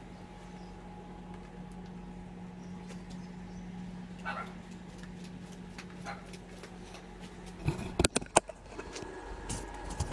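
Quiet backyard ambience with a steady low hum and a short, high rising-and-falling call about four seconds in. Near the end come a rapid cluster of sharp clicks and knocks as the camera is picked up and handled.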